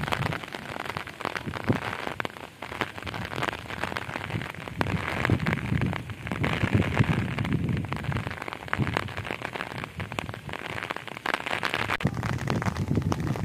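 Heavy rain falling steadily, a dense patter of many drops on wet ground and pools, with uneven low rumbling swells underneath.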